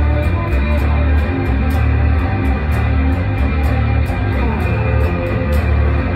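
Fretless electric bass played through heavy fuzz: a thick, sustained low 'thundering' tone with higher sliding, sitar-like notes above it.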